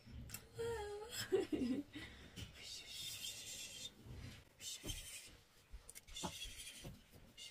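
A toddler's short vocal sounds and a giggle in the first two seconds, then soft rubbing and rustling with a few light knocks.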